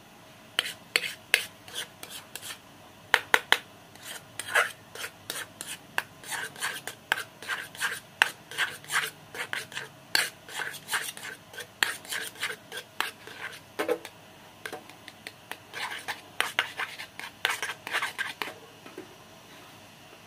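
Metal spoon scraping and stirring a thick glutinous rice flour paste in a small aluminium pot, in quick irregular strokes. The strokes stop about two seconds before the end.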